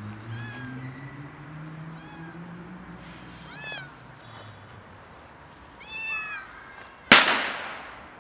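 A cat meowing, about four short meows, the one near six seconds in the loudest. About seven seconds in, a single sharp loud bang that dies away over about a second.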